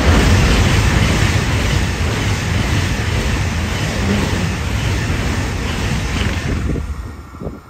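A train passing close by at speed: a loud, steady rushing rumble of wheels on rail and air that falls away near the end, with a few short knocks as the tail passes.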